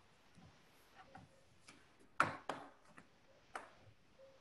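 A handful of separate clicks, the loudest a little after two seconds in, over low room hiss.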